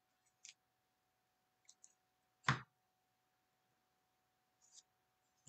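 Baseball trading cards being handled: a few faint clicks and ticks, with one sharper tap about two and a half seconds in.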